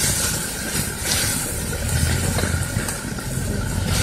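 Chopped onions and curry leaves sizzling in hot oil in an iron kadai, stirred with a ladle, over a steady low rumble.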